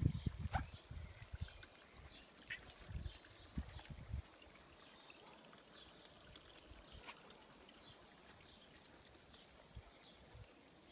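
Water trickling from an outdoor tap into a stone trough, with small birds chirping throughout. Low thumps on the microphone in the first four seconds.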